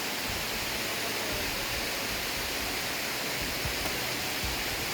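Steady rush of water pouring over a small creek waterfall.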